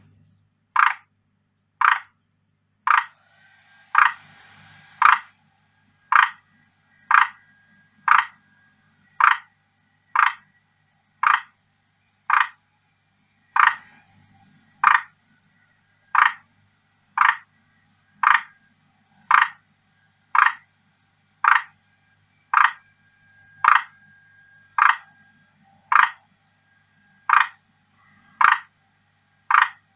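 Male forest green tree frog (Rhacophorus arboreus) giving its mating call to a female: short croaks repeated steadily about once a second.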